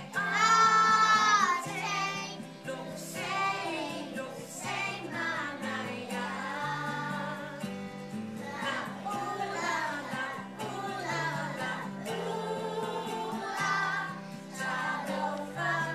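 A group of young children singing a Pasifika action song together to a musical backing, with a loud held note in the first second or so.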